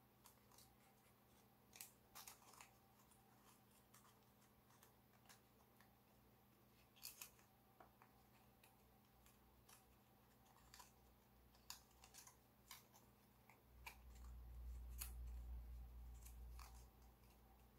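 Gold foil origami paper crinkling and crackling faintly as fingers fold and pinch it, in scattered short ticks. A low rumble comes in for a few seconds near the end.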